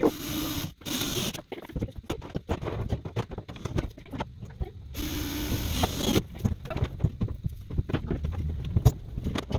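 Cordless drill running in short bursts while screwing a board to a plywood barn wall: two quick runs at the start and a longer one about five seconds in. Scattered knocks and rustles from handling come between the runs.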